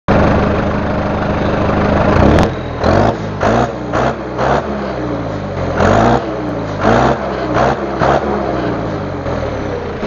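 John Deere 5820 tractor's diesel engine at the exhaust stack, idling steadily, then blipped in a series of short revs from a little over two seconds in, each rising and dropping back quickly.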